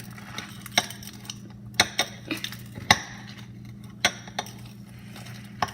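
Sharp, irregular clicks and taps from hands handling a tub of slime, about one a second, over a faint steady low hum.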